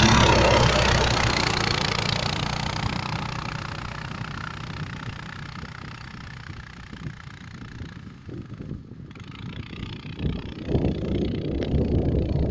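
Mini snowmobile's small engine running under throttle, loud at first and fading steadily as the machine moves away, then growing louder again from about ten seconds in.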